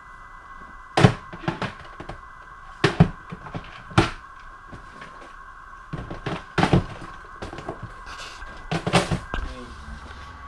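Tackle boxes being handled and opened: a string of sharp clicks and knocks, the loudest a second or two apart, over a steady high hum.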